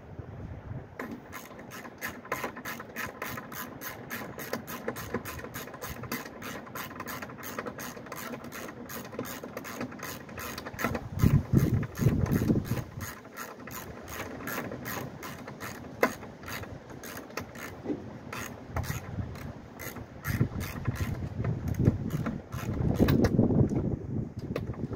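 Hand ratchet wrench clicking in quick, even strokes as a fastener is turned, with louder low knocks and bumps of the tool against the car now and then.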